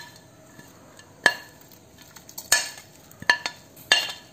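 A metal spoon scraping and knocking against a plate, making several sharp clinks with a short ring, roughly one a second, as a fried ginger and spice mixture is pushed off the plate.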